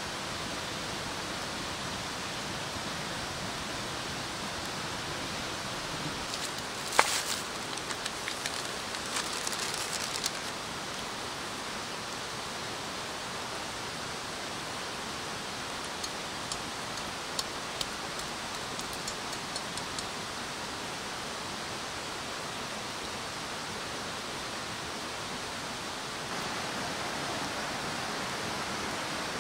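Steady rushing of running water. A single sharp click comes about seven seconds in, followed by scattered small clicks for a few seconds and again around the middle.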